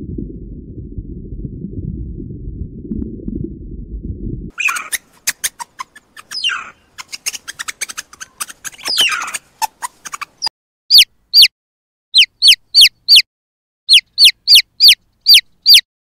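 A low rumbling underwater noise for the first few seconds, then meerkats' quick clicks and short chirps. From about eleven seconds a baby chick peeps loudly and steadily, each peep falling in pitch, two to three a second.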